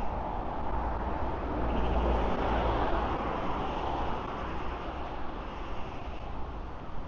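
Road traffic on a city street: a vehicle passes close by, swelling louder about two seconds in and fading again, over a steady low rumble of traffic.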